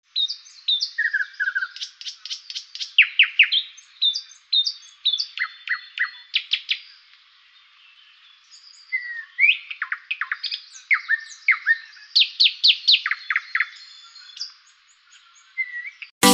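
Songbirds chirping and singing: many quick, downward-sweeping chirps and short whistles, with a quieter lull about halfway through.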